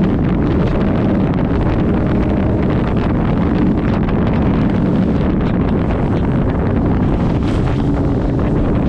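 Open-cockpit offshore powerboat running flat out through choppy water, its engine noise buried under heavy wind buffeting the microphone. About seven seconds in, a burst of spray breaks over the boat.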